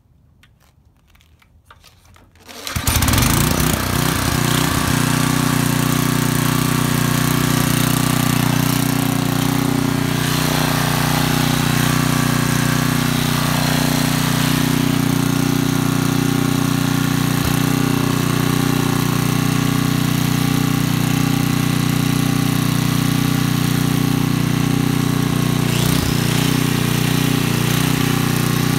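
DeVilbiss GT5000 generator's 10 HP Tecumseh engine starting about two and a half seconds in, then running at a steady speed.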